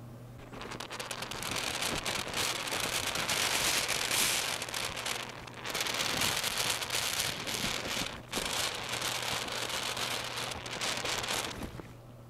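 Aerosol contact cleaner (Servisol) hissing and spitting out of its red extension straw in three long bursts with short breaks between them. It is being sprayed onto the contacts of a multimeter's rotary selector switch to clean off oxidation.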